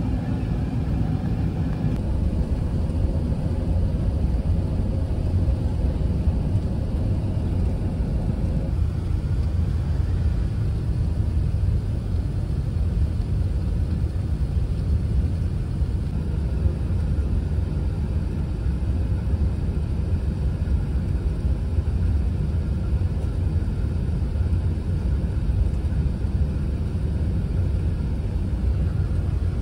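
Steady low rumble of airflow and engines inside an Airbus A380's cabin on final approach, with faint higher steady tones that stop about nine seconds in.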